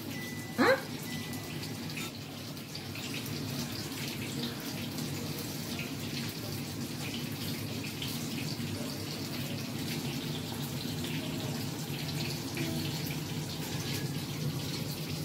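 Steady rushing of running water, like a kitchen tap left on. About half a second in, a child gives one short rising vocal sound over it.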